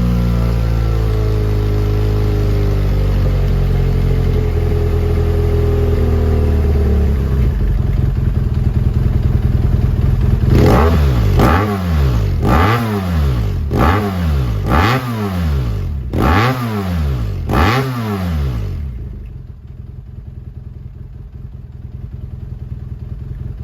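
BMW F800R's parallel-twin engine through a Delkevic carbon aftermarket silencer: running with its revs slowly falling, then blipped about seven times in quick throttle revs roughly a second apart, then settling to a quieter steady idle near the end.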